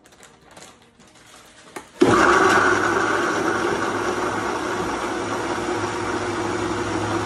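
Countertop blender switched on about two seconds in, its motor running steadily and loud as it blends pitaya, pineapple, banana and coconut water into a smoothie base. A few faint clicks of handling come before it starts.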